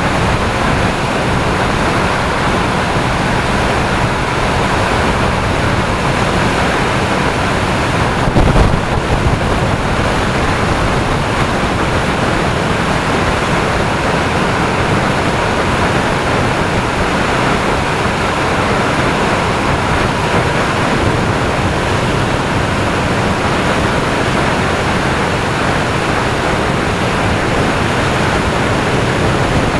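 Steady loud rush of wind noise on the microphone of an action camera mounted low on a moving motorcycle, with road noise from the ride underneath. A brief louder low thump comes about eight and a half seconds in.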